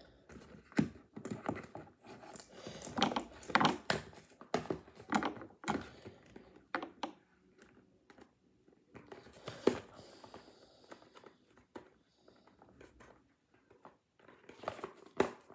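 Cardboard and plastic toy packaging crinkling and rustling as it is cut and pried open with scissors, with scattered irregular clicks and snips and a couple of quieter pauses.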